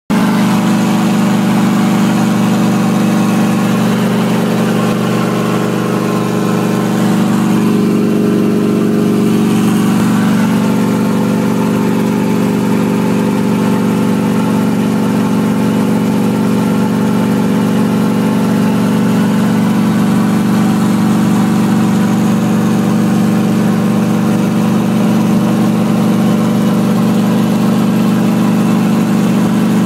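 Light helicopter's engine and rotors running in flight, heard from inside the cabin as a loud, steady drone.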